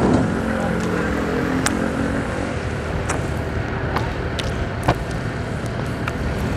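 Motorcycle engine running at low speed with steady road and wind noise. A deeper engine drone fades away over the first couple of seconds as a jeepney is passed, and a few sharp clicks or rattles sound throughout.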